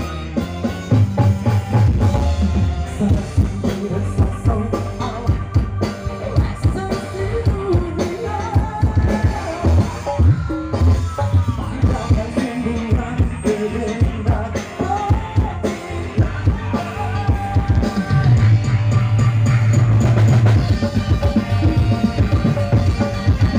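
Live band music played loud through a PA: a drum kit keeping a busy beat under electric guitars, with a male singer singing into a microphone.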